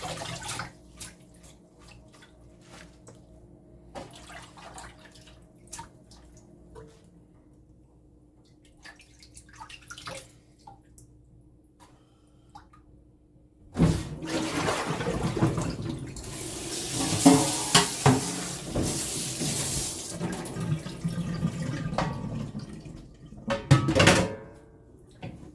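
Small handling clicks over a low steady hum, then about halfway through a kitchen tap runs into the sink with splashing water for about ten seconds and shuts off shortly before the end.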